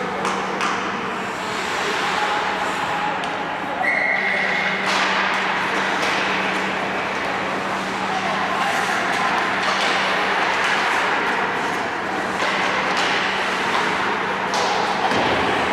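Ice hockey rink game noise: echoing voices with scattered knocks and clicks over a steady low hum, and a short, flat, high whistle tone about four seconds in.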